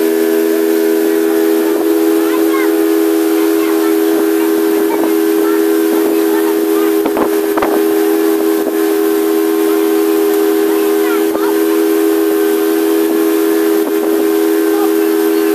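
Boat's outboard motor running steadily at cruising speed, a constant hum over a steady hiss of wind and rushing water.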